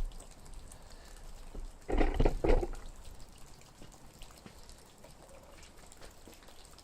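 A glowing-hot hardened-steel padlock body dropped into a puddle to quench: a short splashing burst about two seconds in. Meltwater drips from a roof throughout.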